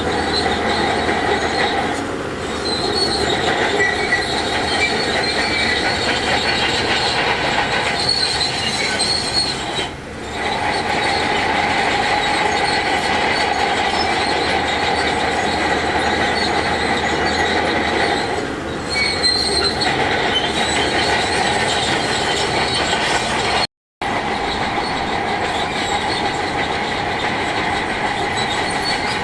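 Crawler bulldozer working, with its steel tracks squealing and clanking over the diesel engine in a continuous loud noise. The noise dips briefly three times and cuts out for an instant about two-thirds of the way through.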